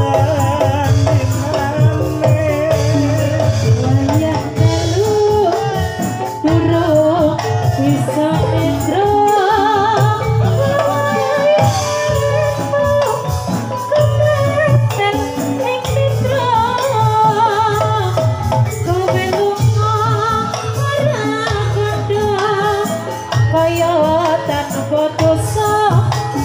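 Live jathilan accompaniment music: a Javanese gamelan-style ensemble playing continuously, with percussion and a wavering sung melody.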